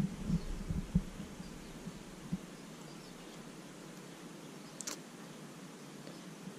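Faint handling noise from fingers working a sticker onto a small Lego piece: a few soft knocks in the first two seconds or so and one sharp click about five seconds in, over quiet room tone.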